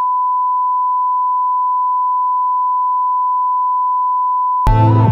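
1 kHz line-up test tone played over broadcast colour bars: one steady, unchanging beep. About four and a half seconds in it cuts off and electronic music with a heavy beat starts.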